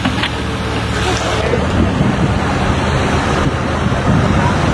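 Wind buffeting the microphone, a dense low rumbling noise, with a faint steady engine hum under it for the first second and a half.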